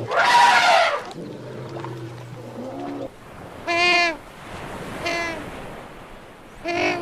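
An animal's loud, harsh squeal, then three short, high, bleat-like calls a second or so apart.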